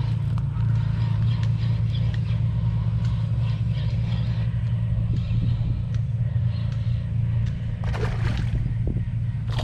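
A steady, low engine drone from a motor running, holding one pitch throughout, with a brief rustle about eight seconds in.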